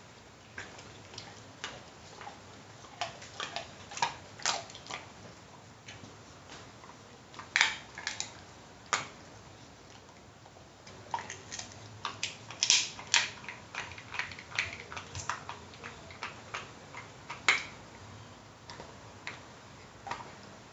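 Staffordshire Bull Terrier chewing a dried pig's ear: irregular crunching and clicking bites, sometimes several close together, with short quiet gaps between bouts.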